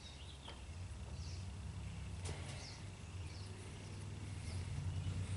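A low background rumble that grows louder toward the end, with a few faint high chirps and one small click about two seconds in.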